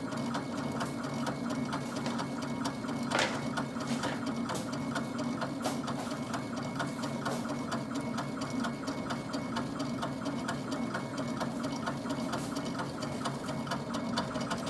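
Laser engraver running an engraving pass on wood, its head motors buzzing back and forth in a quick, steady rhythm over a constant hum, with one sharper click about three seconds in.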